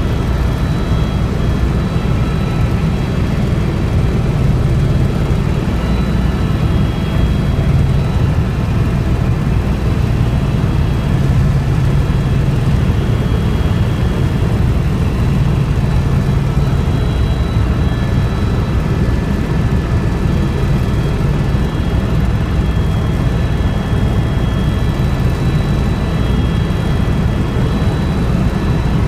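Helicopter in flight heard from inside the cabin: a loud, steady drone of engine and rotor, with thin steady whining tones above it.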